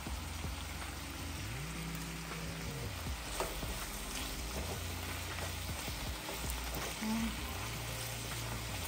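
Cabbage, bacon and kielbasa sizzling steadily in a frying pan, with a wooden spoon stirring through it near the end.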